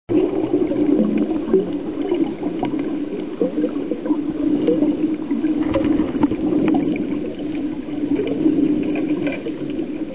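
Muffled underwater sound picked up by a camera below the surface: a steady low hum with scattered small clicks and bubbling.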